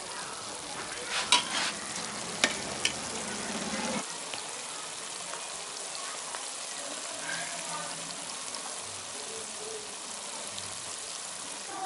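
Thick kadai paneer gravy sizzling and bubbling steadily in a large iron kadai. In the first three seconds a steel spatula strikes and scrapes the pan in a few sharp clicks; after that only the sizzle goes on.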